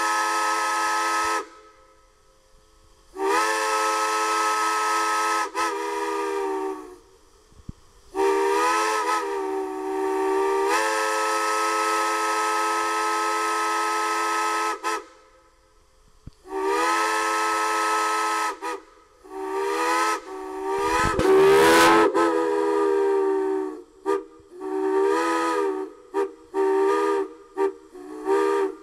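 Steam whistles on a stand fed with steam from a steam locomotive, sounding a chord of several notes with steam hiss. Several long blasts are separated by short gaps, a few notes slide in pitch, and a quick run of short toots comes near the end.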